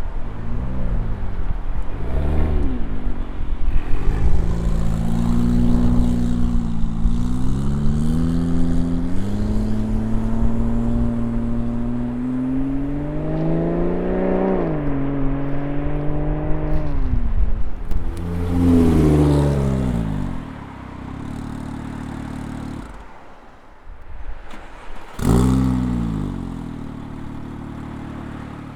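Porsche 911 (997) Turbo's twin-turbo flat-six through a custom-built exhaust with made-to-fit mufflers, driving. The pitch climbs under acceleration and drops at an upshift about halfway through, with short revs rising and falling near the start and again later, and a quieter stretch about two-thirds through.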